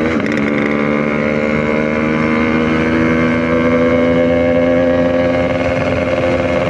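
Yamaha RX-King two-stroke single-cylinder motorcycle engine running while riding. Its pitch rises briefly at the start, then holds steady.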